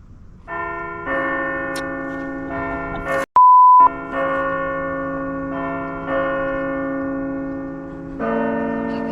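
Bells ringing, struck again every second or two so that each new stroke rings over the last. About three seconds in they cut out for a short, loud, single-pitched beep, then the ringing resumes.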